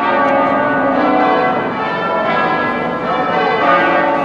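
Church bells ringing together in a festive peal, several tones sounding at once and overlapping.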